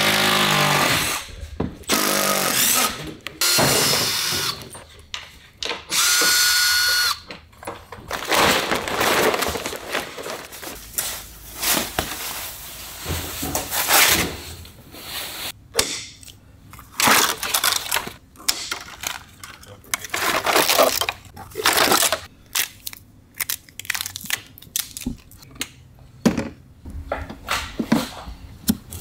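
Workshop sounds from unpacking a new motor trike from its shipping crate. The first seven seconds hold a few long rasping bursts, one carrying a steady whine. After that come plastic wrapping rustling and a string of short clicks and knocks from hand tools and parts.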